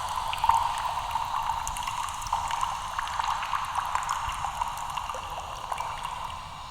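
A steady fizzing, crackling hiss full of tiny clicks, slowly fading away near the end.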